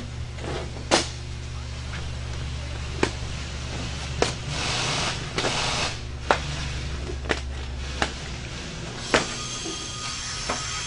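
Orange fire-retardant fabric cover being worked off a spark guard's metal frame: the heavy cloth rustles, and a run of sharp clicks and knocks comes about every second or two as fastenings and frame are handled.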